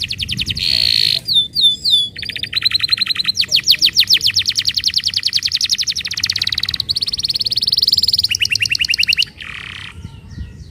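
Domestic canary singing a long song of rapid trills, each a fast run of repeated notes, switching from one trill to the next every second or two. The song stops suddenly about nine seconds in, leaving a few faint chirps.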